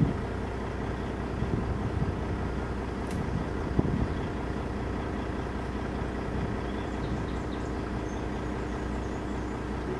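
Large wheel loader's diesel engine idling steadily, with a couple of light knocks about three to four seconds in.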